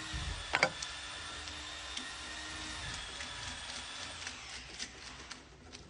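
Screwdriver clicking against a light switch's terminal screw, with one sharp metallic click about half a second in and lighter clicks after, over a steady mechanical hum.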